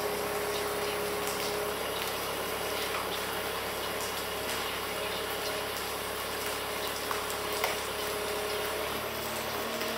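Compact wheel loader running steadily with a constant whine, over an even hiss.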